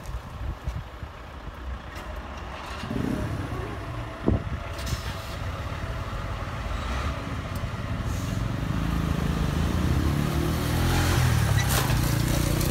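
Railway level crossing barriers lifting after a train, with a low mechanical hum starting about three seconds in and a sharp clack a second later. Road vehicle engines then build steadily louder as waiting traffic prepares to cross.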